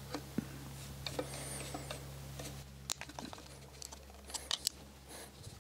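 Faint small clicks and scrapes of a flat screwdriver working on a carburettor: the blade turning the brass main jet out of the float bowl and knocking against the metal body.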